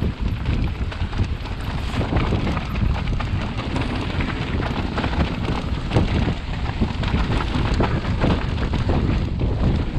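Electric mountain bike ridden down a rough enduro trail: tyres and frame clattering over the ground in a constant run of knocks, with heavy wind buffeting on the action-camera microphone.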